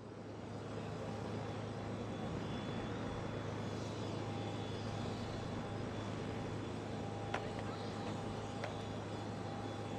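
Steady jet aircraft engine noise heard from a distance across the airfield, with a low hum underneath, and two brief clicks a little over a second apart near the end.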